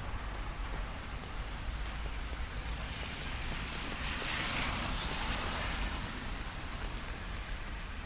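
Steady rain and wet-road traffic noise. About halfway through, a vehicle passes, its tyres hissing on the wet asphalt as the sound swells and then fades.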